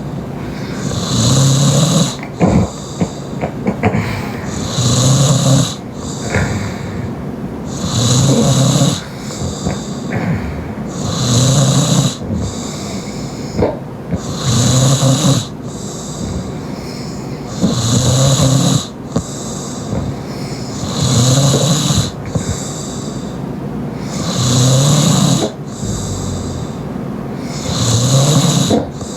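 Loud open-mouth snoring, one heavy snore about every three seconds, from a sleeper that the uploader takes for a young woman. Fainter snores from what the uploader thinks is a second sleeper come between them.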